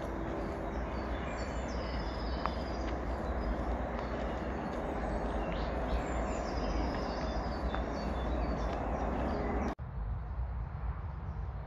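Small woodland birds chirping and singing over a steady low rumble and hiss. About ten seconds in, a brief dropout; after it the birds are fainter and the low rumble grows louder.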